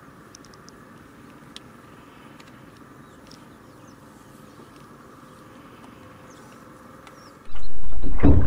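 Quiet open-air background with a few faint, short high bird chirps. About seven and a half seconds in, a loud low rumble from the moving boat starts suddenly, with a short honking call just before the end.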